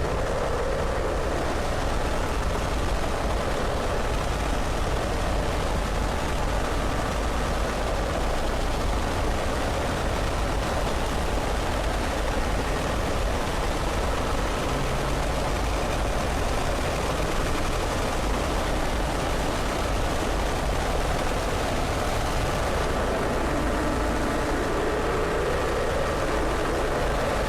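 Warning siren sounding under a heavy, steady wash of noise, its pitch swelling slowly near the start and again near the end.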